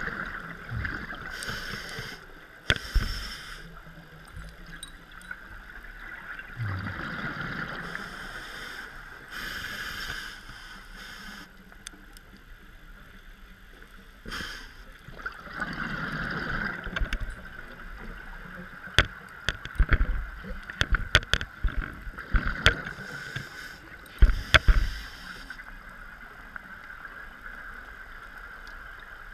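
Scuba diver's regulator breathing underwater: a hiss on each inhale every few seconds, with low bubbling exhaust between, and a run of sharp clicks and knocks about two-thirds of the way through.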